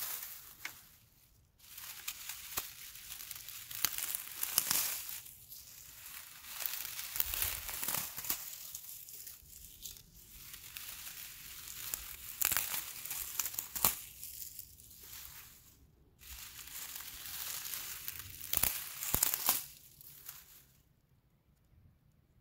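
Dry grass stems crackling and rustling as a hand crushes and rubs a tuft of dry grass, in uneven bursts with short pauses; it stops near the end.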